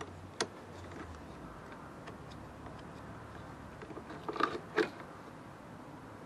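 A few faint clicks and knocks of hands and metal tools working around a van's engine bay: one sharp click about half a second in, then a short cluster of louder knocks near the end.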